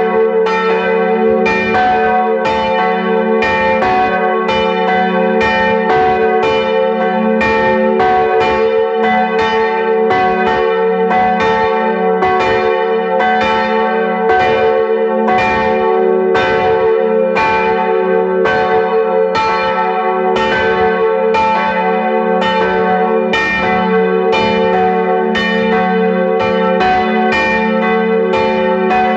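Church bells ringing in a continuous peal, struck about once or twice a second, each stroke ringing on under the next so that the hum of the bells never dies away.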